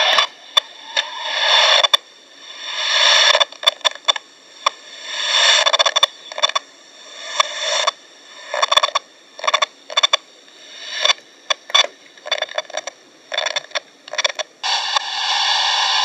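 ATS-20 receiver's speaker hissing with medium-wave static as its tuning knob is turned. The hiss swells and cuts out again and again with many sharp clicks at the tuning steps, interference from the radio's own digital circuitry. Near the end it settles into a steady hiss.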